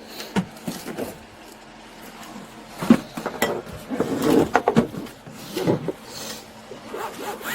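Handling noise of people moving close to a body-worn camera: rustling and rubbing with scattered knocks and light metallic clinks, the sharpest knock about three seconds in.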